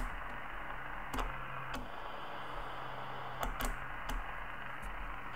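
Rotary mode switch on a Super Star 2000 CB transceiver clicking through its detents, about five separate clicks, over steady receiver hiss from the radio's speaker with no signals on the band.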